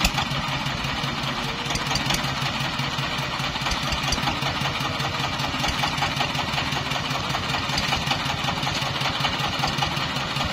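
Small dump cart's single-cylinder diesel engine running steadily with a regular chugging beat while the tipper bed is lowered, with one sharp knock at the very start.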